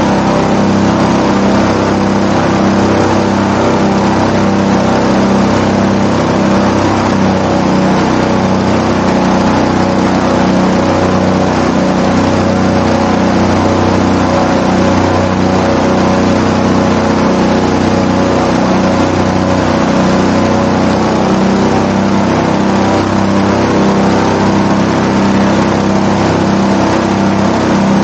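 Airboat-320 SE airboat running at a steady speed: its engine and air propeller give a loud, even drone that holds one pitch throughout.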